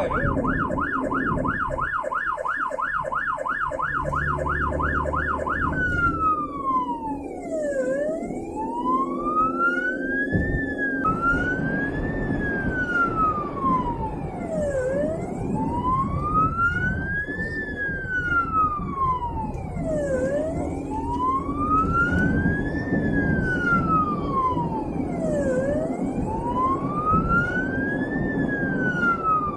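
Ambulance's electronic siren heard from inside the cab, over road and engine noise: a fast yelp for the first few seconds, then it switches to a slow wail rising and falling about every five seconds.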